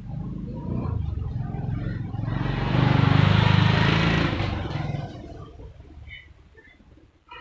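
A motorcycle passing by: its engine grows louder as it approaches, is loudest about three to four seconds in, then fades away.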